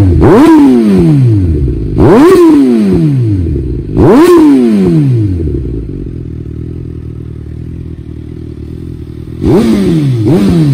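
Suzuki GSX-S1000's inline-four engine revved through an Arrow Pro Race titanium exhaust: three sharp throttle blips about two seconds apart, each falling back in pitch, then a steady idle, then two quick blips in a row near the end.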